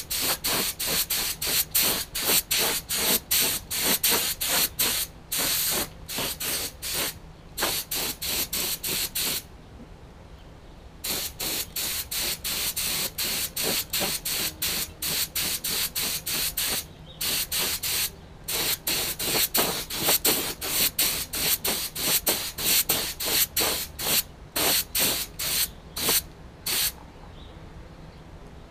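Compressed-air paint spray gun hissing in quick short bursts, about two a second, as the trigger is pulled and released while spraying paint. There is a pause of about a second and a half roughly a third of the way through, and a few shorter breaks later on.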